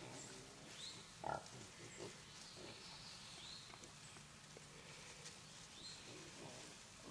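A group of feral hogs feeding and grunting softly, with one louder short grunt about a second in.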